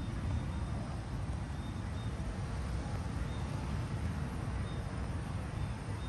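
Gas fire pit flames burning steadily over a bed of rocks, a constant low rushing rumble with a softer hiss above it.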